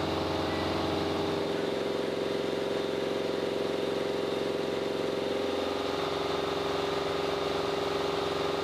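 Steady engine drone with a constant pitched hum; a deeper rumble drops away about a second and a half in.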